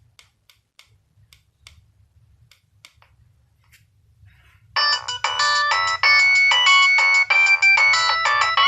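Faint scattered clicks, then about five seconds in a Nokia 3100 mobile phone ringtone starts loudly from the phone's speaker: a quick electronic melody of stepping notes, several sounding at once.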